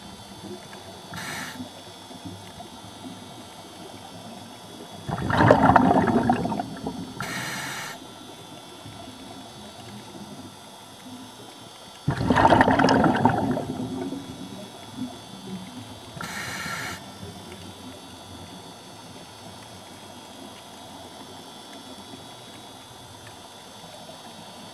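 A scuba diver breathing underwater, heard through the camera housing over a steady hiss: two loud bursts of bubbling exhalation about seven seconds apart, each lasting a couple of seconds, with short hissing regulator inhalations between them.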